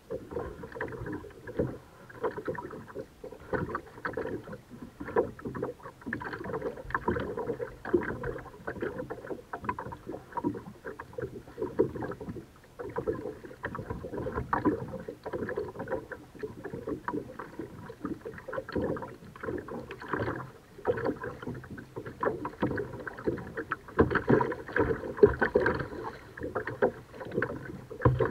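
Kayak being paddled: a busy, irregular run of small splashes as the paddle blades dip and water drips and laps at the hull.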